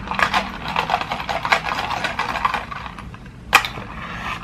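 Close-miked chewing of crispy KFC fried-chicken coating: dense, crackly crunches for the first three seconds or so. A single sharp click follows about three and a half seconds in.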